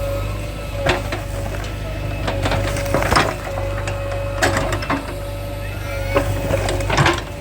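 JCB 3DX backhoe loader's diesel engine running steadily with a constant whine, while masonry rubble knocks and clatters sharply about six times as the machine breaks it up.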